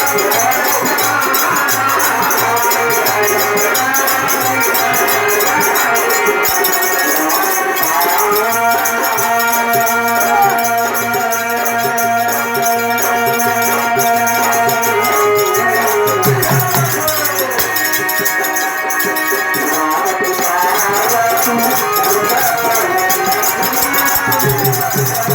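Instrumental music with a constant shaker-like rattle, and long held melody notes through the middle stretch.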